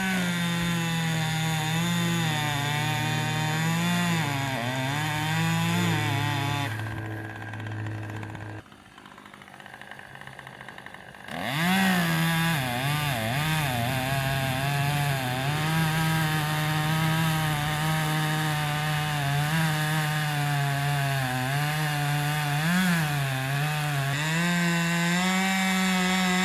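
Two-stroke chainsaw running at full throttle through a cut in white oak, its pitch dipping and recovering as the chain bogs under load. About seven seconds in it eases off and drops to a low idle for a few seconds, then goes back to full throttle about eleven seconds in and stays there.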